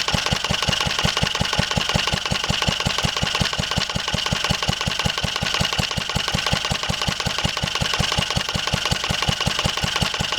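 1954 Wolseley WD8 stationary engine running steadily off load, with an even, rapid beat of firing pulses that holds constant.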